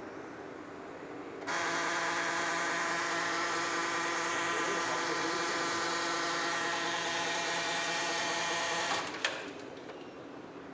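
Ricoh colour photocopier's drive motors and gears running: a steady whine with many tones starts suddenly about a second and a half in and runs for about seven seconds, then stops with a click.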